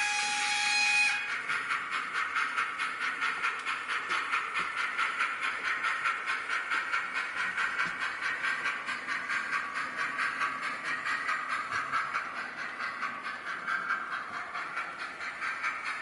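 Steam locomotive sound from a Soundtraxx ECO-21PNEM DCC sound decoder in a Hornby P2 model locomotive. A whistle cuts off about a second in, then steady, rapid, even chuffs continue over a hiss as the model runs.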